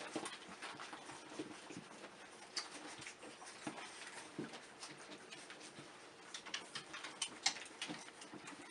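A litter of young puppies faintly squeaking and shuffling, with scattered small clicks and rustles as they move about.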